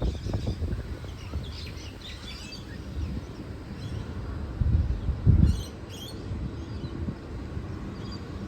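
Birds chirping over a steady low rumble, with a louder low swell about five seconds in.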